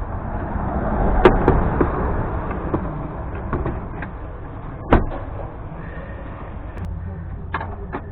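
Hand work on a vehicle's engine-bay parts while the air box is being refitted: a scatter of clicks and knocks, the sharpest about five seconds in, over a steady low rumble.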